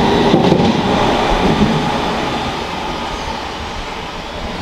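London Underground S7 Stock train running out of the station, its wheels rumbling on the rails and fading steadily as it moves away. A few sharp clicks sound about half a second in.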